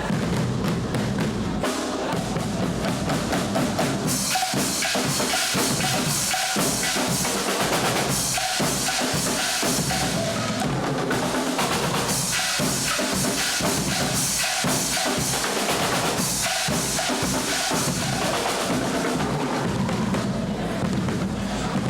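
Guggenmusik carnival band's drum section playing a loud percussion break: snare and bass drums in a fast rhythm with cymbals crashing over it. Low sustained brass notes sound for the first two seconds, drop out for the break, and come back in near the end.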